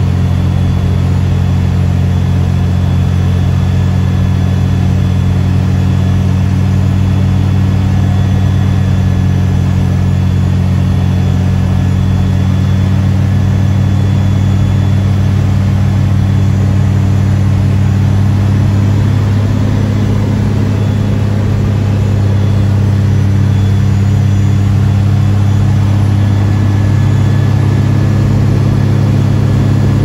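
Cockpit sound of a Cessna O-1G Bird Dog's Continental O-470 six-cylinder engine and propeller running with a steady drone. The engine note shifts slightly after about two-thirds of the way through.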